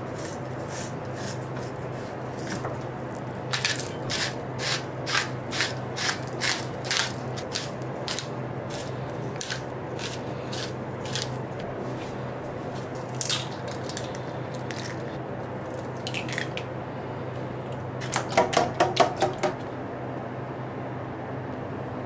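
Kitchen knife cutting a flounder fillet into pieces on a wooden cutting board: a run of sharp knocks of the blade on the board, about two a second, then scattered single knocks, with a quicker cluster of louder knocks near the end. A steady low hum runs underneath.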